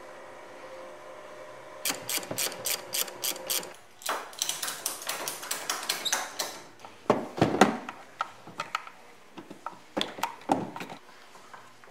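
A ratchet clicking in two quick runs, then several louder knocks and clatters of metal tools and parts, as a snowmobile is fastened to a dynamometer.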